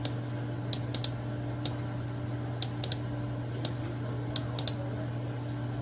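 Computer mouse clicking: about ten sharp, irregularly spaced clicks, several in close pairs, from pressing and releasing the button to draw line segments. A steady low hum runs underneath.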